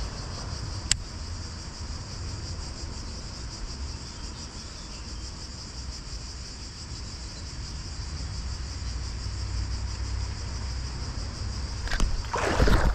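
Steady, high-pitched insect chorus over a low rumble, with a single sharp click about a second in. Near the end comes a sudden loud rush of noise as a bass takes the spinnerbait and is hooked.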